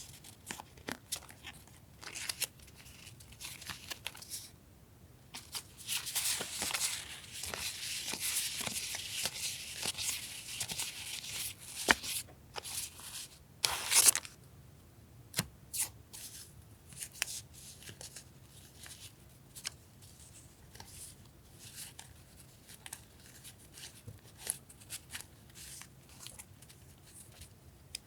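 Paper stationery and its packaging being handled: sheets rustling and shuffling among small taps. A stretch of steady crinkling runs from about five to twelve seconds in, and a loud crackle comes around fourteen seconds.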